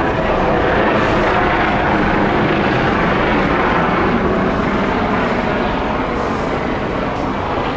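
Steady, loud roar of engine noise that eases slightly near the end.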